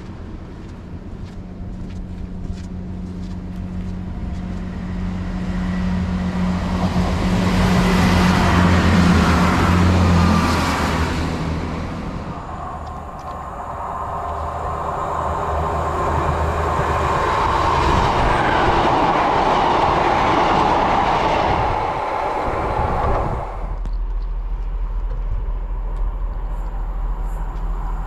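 Diesel trains passing on the line. The first passes with a steady engine drone that is loudest about eight to ten seconds in. A second train follows and then cuts off suddenly, leaving a low steady hum near the end.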